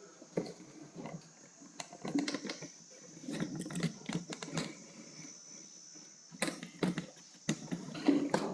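Dry-erase marker writing on a whiteboard: irregular short squeaks, scratches and taps of the tip on the board, over a faint steady high-pitched whine.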